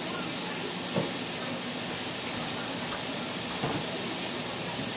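Steady hiss, with two soft knocks, about a second in and again later.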